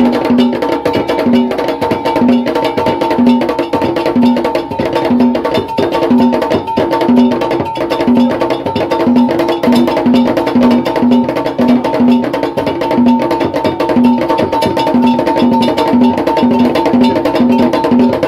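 Ga Kpele drumming: low drum strokes about twice a second in a repeating pattern under dense, fast wood-block-like clicking percussion.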